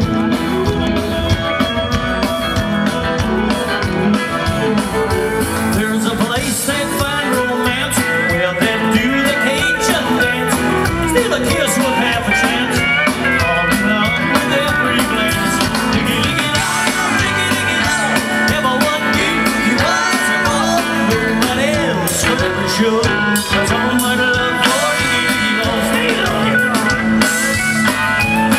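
Live country band playing with the full band together: fiddle, pedal steel guitar, guitar and drum kit.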